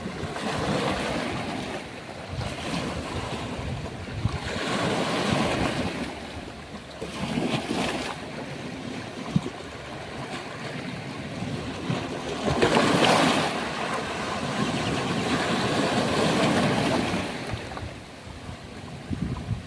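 Ocean waves breaking on a beach, the surf swelling and falling back in repeated surges, the loudest about two-thirds of the way through, with a few short knocks or splashes between them.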